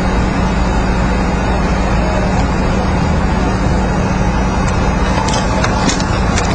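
Steady street traffic noise with a constant low hum, heard through a surveillance camera's microphone, with a few faint clicks in the last second and a half.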